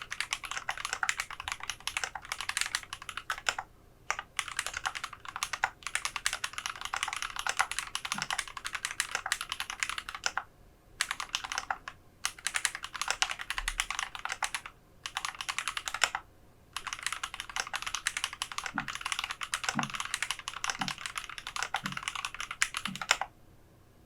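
Typing on a GMMK Pro mechanical keyboard with lubed SP-Star Meteor White linear switches, a polycarbonate plate and PBT keycaps: fast runs of keystrokes broken by short pauses, stopping just before the end.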